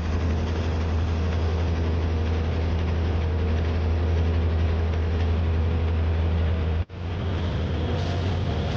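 Fishing boat's diesel engine running with a steady low hum, briefly breaking off about seven seconds in.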